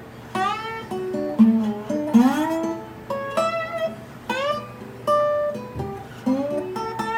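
Guitar playing a lead lick over a D chord: a string of separately plucked notes, several slid up in pitch into the note, each left to ring briefly.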